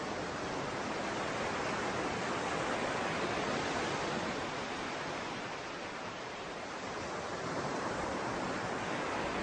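An even rushing noise, hiss-like with no tone or rhythm in it, swelling gently a few seconds in and again near the end.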